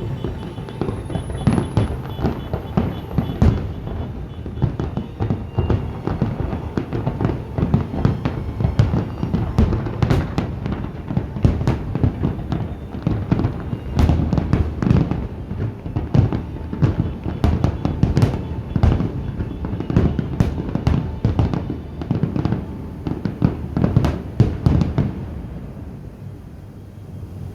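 Fireworks display: a dense, rapid barrage of bangs and crackles that thins out and stops about 25 seconds in, leaving a low rumble.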